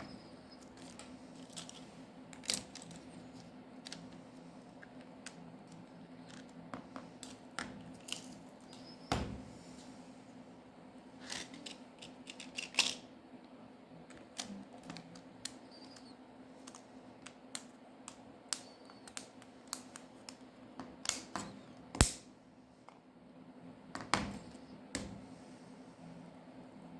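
Irregular small clicks and taps of hand tools and plastic and metal smartphone parts being handled during a repair, over a faint steady hum.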